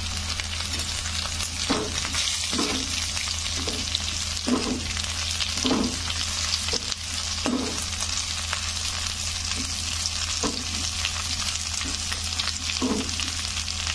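Cluster beans, onion and tomato sizzling in hot oil in a kadai while a spatula stirs them, its strokes scraping against the pan roughly once a second with a pause midway. A steady low hum runs underneath.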